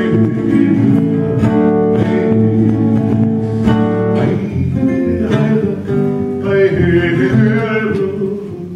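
Hawaiian slack-key acoustic guitar playing a song, with a voice singing along.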